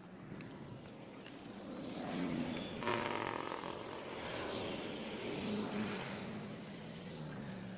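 A motor vehicle passing by. It grows louder to its loudest about three seconds in and fades away near the end.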